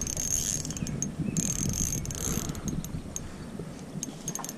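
Spinning reel being cranked to bring in a hooked bluegill, its gears giving a high whir that runs in spells with short pauses and a few ticks near the end.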